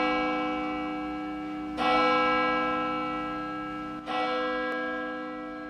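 A large bell tolling: struck about two seconds in and again about four seconds in, each stroke ringing on and slowly fading, with an earlier stroke still ringing at the start.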